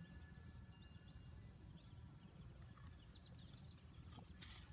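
Near silence outdoors with a faint low rumble, a single faint bird chirp about three and a half seconds in, and light handling of a hardcover picture book near the end.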